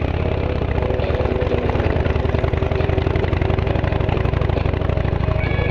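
Motorcycle engine running at a steady low speed as the bike rolls slowly along, its firing pulses even and unchanging.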